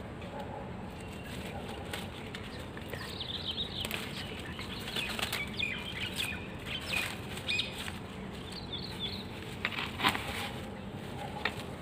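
Leaves and thin stems of a potted shrub rustling as it is handled, with birds chirping in the background through the middle and two sharp clicks near the end.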